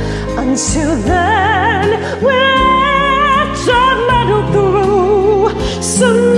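A woman singing held notes and sliding runs with a wide vibrato over a karaoke backing track, in a classical-crossover style.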